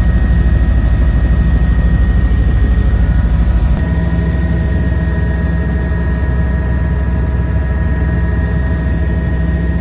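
Helicopter in flight: a loud, steady engine and rotor drone with a fast low beat. The tone of the drone shifts abruptly a little under four seconds in.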